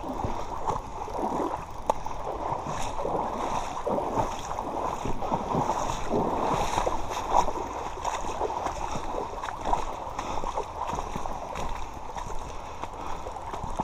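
River current running and gurgling steadily, with a few brief knocks.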